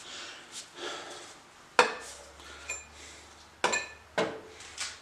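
Sharp knocks with a brief metallic ring as a steel axe head is driven onto a new wooden handle. The loudest knock comes about two seconds in, and two more follow near the end, with lighter taps between them.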